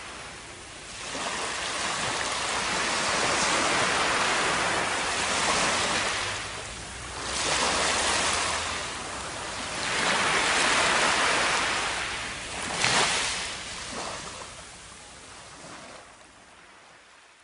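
Ocean surf washing up onto a sandy beach, coming in swells every few seconds and fading out near the end.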